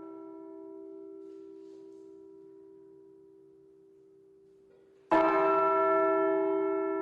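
A large bell tolled once, about five seconds in. Its ringing tones take over from the fading hum of the previous stroke and die away slowly.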